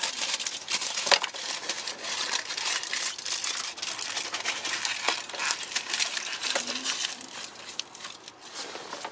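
Aluminium foil crinkling and crackling as gloved hands scrunch it around the end of a disconnected fuel line. The crackle is dense and continuous, thinning out near the end.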